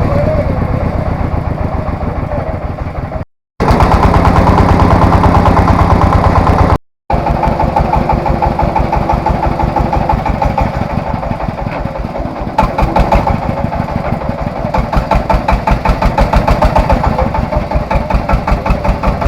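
Engine of a Vietnamese three-wheeled farm tractor, a single-cylinder diesel, running with a steady, even beat. The sound drops out twice briefly.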